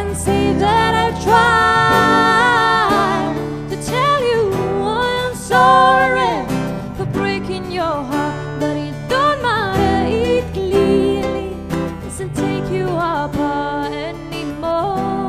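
Two acoustic guitars played together under a wordless sung melody in a high voice, gliding and wavering between held notes.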